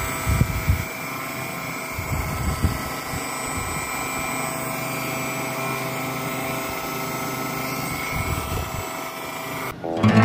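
Two small brushed DC motors coupled by a belt running steadily, a whine with several held tones; the belt-driven motor is working as a generator, lighting a bulb. A few low knocks sound over it, and the sound cuts off just before the end.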